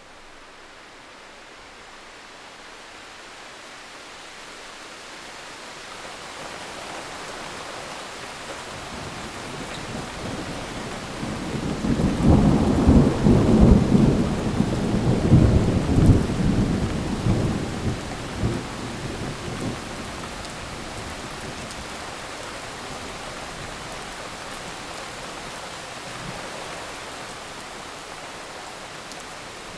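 Steady rain with a thunderclap. The rain builds gradually, then about twelve seconds in a loud, low, crackling rumble of thunder peaks and rolls away over several seconds, leaving the rain. Another rumble begins near the end.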